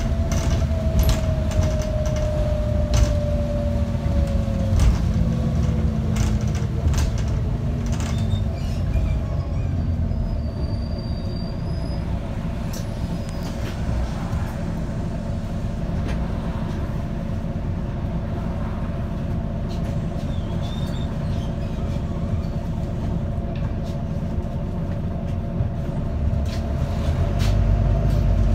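Volvo B9TL double-decker bus heard from inside the saloon: a steady diesel rumble with a driveline whine that falls in pitch over the first few seconds as the bus slows, and light rattles and clicks from the body. The middle stretch is a steadier, quieter hum, and the low engine rumble grows louder near the end.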